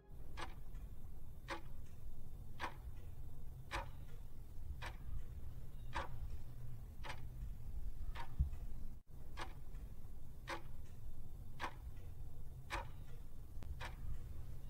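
A clock ticking steadily, with stronger and softer ticks alternating about twice a second, over a low steady rumble. The sound drops out for an instant about nine seconds in.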